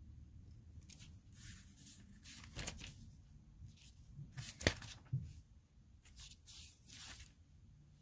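Rustling and light clicking of Lego pieces being handled during a build, in several short bursts, with one sharper click a little past the middle.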